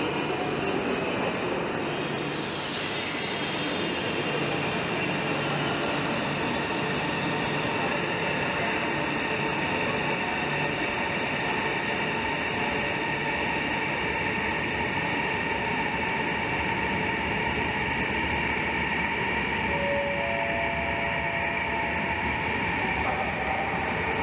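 CR400AF Fuxing high-speed electric train pulling out of a station platform: a steady whine and rumble of the train as it starts to move, with a falling high tone about two seconds in.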